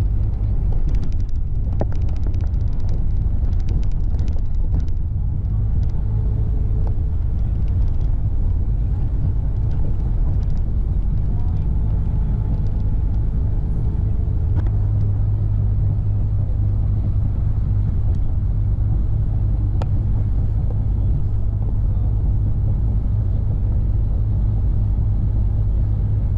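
Steady low engine and road rumble of a moving road vehicle, with a few light clicks or rattles in the first few seconds.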